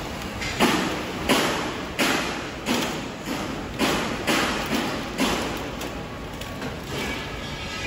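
A series of dull metallic thuds, about one every two-thirds of a second, each trailing off in an echo. They weaken after about five seconds.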